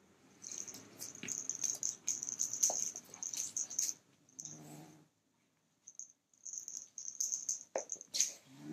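Kitten growling low in short spells, once about four seconds in and again near the end, guarding its toy. In between, the small bell on the feather toy jingles and rattles as the kitten bites and kicks it.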